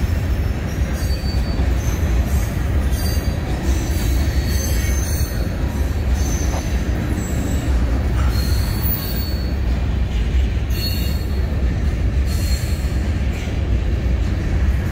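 Covered hopper cars of a freight train rolling past at close range: a steady heavy rumble, with short high-pitched wheel squeals coming at irregular moments.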